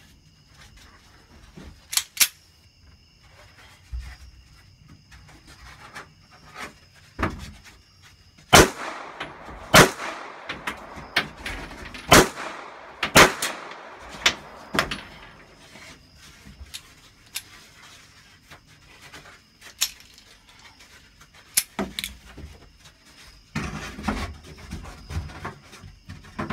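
Gunfire at a shooting range: single shots at irregular intervals, a second or more apart, some loud and some fainter, with the loudest run of shots in the middle.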